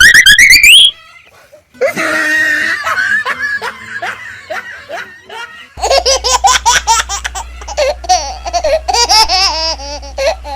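A loud rising glide ending about a second in, then two long stretches of laughter in quick pulsed bursts, like a baby's giggling.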